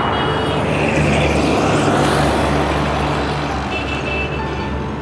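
Motorcycle engine running steadily, a low even hum under road and traffic noise.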